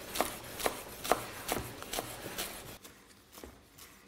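Chef's knife chopping fresh dill and parsley on a wooden cutting board: evenly spaced knocks of the blade on the board, about two a second, about six strokes. The chopping stops about two and a half seconds in.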